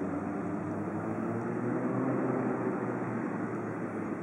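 Piaggio P180 Avanti's twin Pratt & Whitney PT6A turboprops and pusher propellers running as the aircraft rolls out along the runway after landing: a steady drone with a low propeller hum that swells around the middle.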